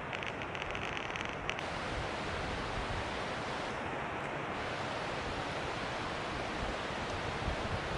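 Steady rush of falling water from a waterfall, an even hiss with no breaks. During the first second and a half a brief run of rapid, high ticks sits on top of it.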